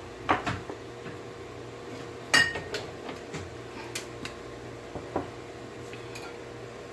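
Metal kitchen utensils clinking against dishes: a handful of sharp taps and knocks, the loudest about two and a half seconds in with a brief ringing note.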